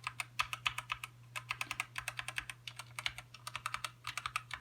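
Typing on a Redragon K552 Kumara mechanical keyboard with red switches: quick, irregular keystroke clacks in runs, with short pauses between them. A steady low hum runs underneath.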